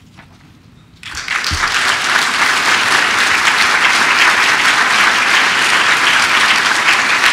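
Audience applauding. It starts suddenly about a second in and quickly becomes a dense, steady clapping.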